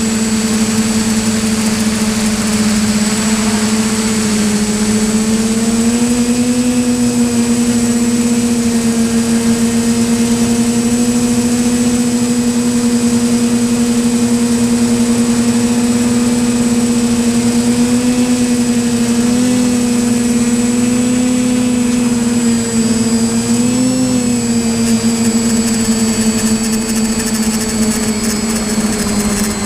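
Quadcopter drone's rotors humming steadily in flight, the pitch stepping up slightly about six seconds in and wavering a little near the end as the drone manoeuvres.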